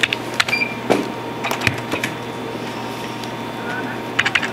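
Debit card payment terminal in use at a shop counter: a few sharp key clicks and a short high beep about half a second in, over a steady low hum, with another cluster of clicks near the end.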